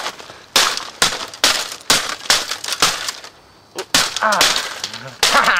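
A Macintosh PowerBook 145b laptop being struck again and again, its case and parts cracking and breaking under a quick series of about eight blows, roughly two or three a second, that stop about four seconds in.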